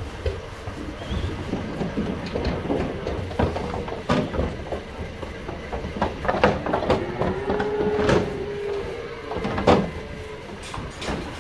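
Calves in a livestock transport truck, one giving a long bawl about seven seconds in, amid repeated knocks and clatters against the truck's metal sides.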